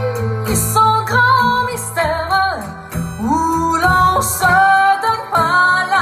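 A French pop song played loud through a TPA Shark TP 450 line array and P181SP 18-inch subwoofers: a woman's voice singing long held notes that slide up into pitch, without words, over guitar and a steady deep bass.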